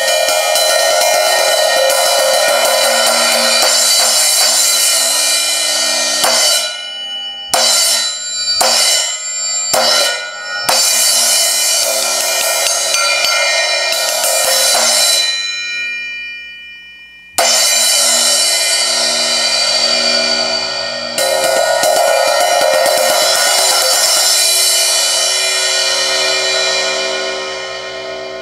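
Zildjian ZXT 14-inch thin crash, a B8 bronze cymbal, crashed hard and left to ring in a bright wash. About six seconds in comes a run of short hits that stop abruptly, then longer crashes that ring out, one fading away before a fresh crash and another that slowly decays near the end.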